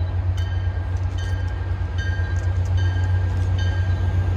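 MBTA commuter rail diesel locomotive approaching from a distance, a steady low rumble. Short high notes come and go over it.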